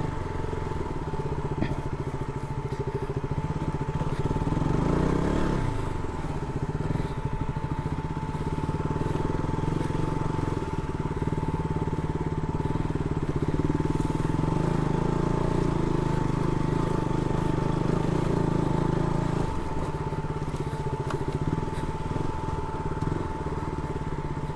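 Motorcycle engine running steadily at low speed over a rough off-road track, with a brief rev about five seconds in and a change in engine note near the end. A steady thin whine runs under it.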